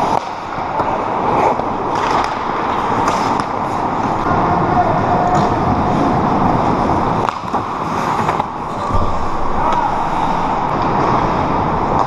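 Ice hockey skate blades scraping and carving on rink ice, with hockey sticks and puck clacking sharply now and then.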